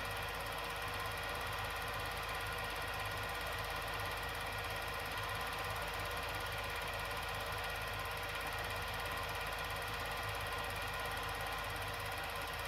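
Steady mechanical whir with hiss and a low hum, unchanging throughout.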